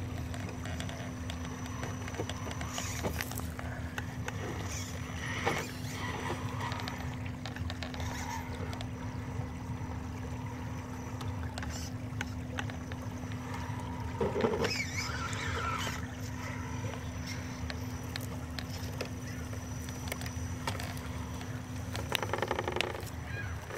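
RC rock crawler driving through shallow river water and up the bank, with a steady hum over flowing water. There is a louder splash or knock about halfway through and a short burst of tyre and drivetrain noise near the end.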